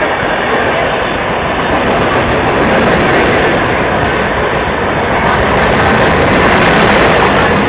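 Express train running through a station at speed: a loud, steady rush of wheels on rails and passing coaches, swelling a little near the end, with no horn.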